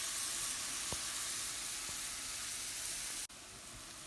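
Ground beef sizzling as it browns in a frying pan, a steady hiss. A little over three seconds in it drops abruptly to a quieter sizzle.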